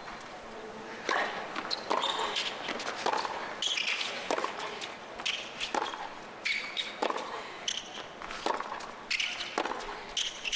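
Tennis rally on a hard court: the serve, then the ball struck back and forth with racquets, a sharp hit about every second, with short high squeaks between the hits.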